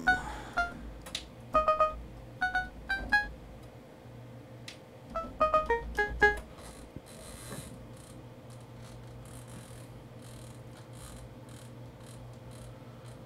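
Kurzweil PC3 synthesizer sounding a pulse-wave patch: about a dozen short, plucky notes at various pitches, each dying away quickly, over the first six seconds. After that only a faint steady hum remains.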